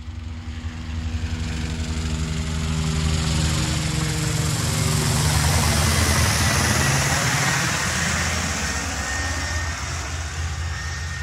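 Aircraft engine noise, a steady low drone that swells up at the start. Through the middle its pitches slide downward, as when something flies past, and a high whistle joins partway through.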